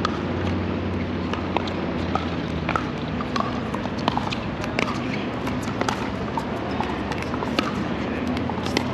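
Pickleball rally: sharp pops of paddles striking the hollow plastic ball, coming irregularly about once or twice a second, over a steady low hum and outdoor background noise.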